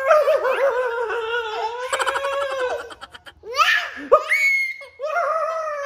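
A toddler laughing hard in long, bouncing giggles, with a quick run of chuckles in the middle. After a short pause comes a high squeal and a falling laughing cry.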